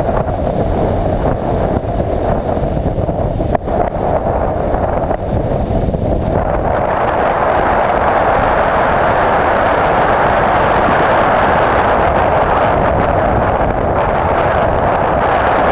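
Adventure motorcycle riding at road speed: a steady rush of wind and road noise over the on-bike camera's microphone, with the engine under it. The rush grows louder about six seconds in.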